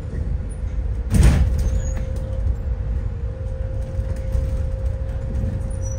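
Inside a moving city bus: steady low engine and road rumble with a constant hum, broken about a second in by a short, loud rush of noise.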